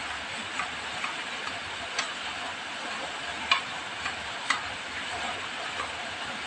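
Kitchen knife chopping garlic on a wooden cutting board: sharp knocks of the blade hitting the board, about two a second and uneven, the loudest about three and a half seconds in, over a steady hiss.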